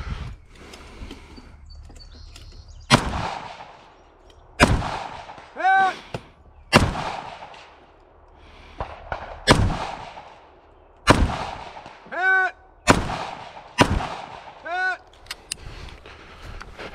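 Scoped AR-style rifle fired in seven single, unhurried shots, each a sharp crack. About a second after three of the shots comes a short ringing ding: a hit on a distant steel target.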